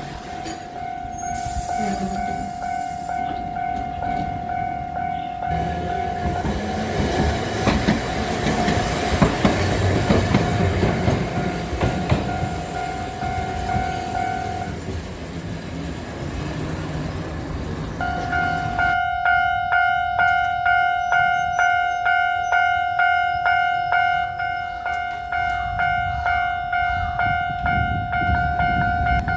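Japanese level crossing alarm ringing its 'kan-kan' bell while a train runs past. The bell stops about 15 seconds in, then starts ringing again about three seconds later, striking about twice a second.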